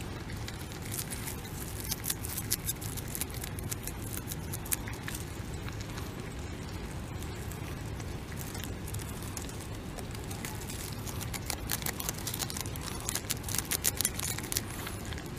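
Beaver kit chewing leafy greens close to the microphone: rapid, crisp crunching clicks, in one bout starting about a second in and a denser bout near the end, over a steady low rumble.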